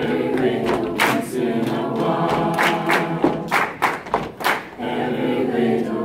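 Mixed high school choir singing a cappella, with hand claps and chest pats keeping the beat through most of the stretch.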